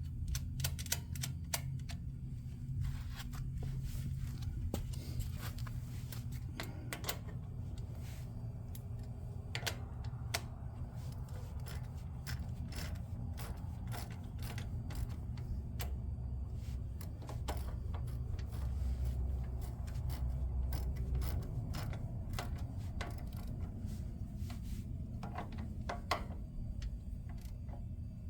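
Irregular metallic clicks, clinks and light scrapes of hand tools and small parts while a replacement carburetor is fitted to a small go-kart engine, over a steady low hum.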